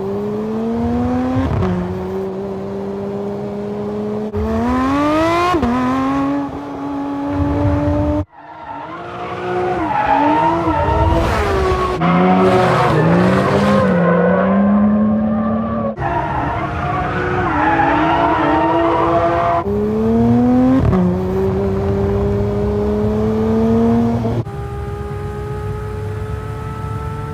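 Porsche 992 GT3's naturally aspirated 4.0-litre flat-six accelerating through the gears, its pitch climbing and then dropping back at each upshift. The takes change abruptly about 8 and 16 seconds in.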